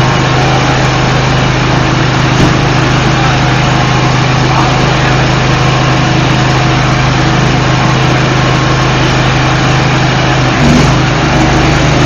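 Heavy storm downpour: a steady, loud rush of rain over a steady low engine hum, with a single knock about two seconds in and another near the end.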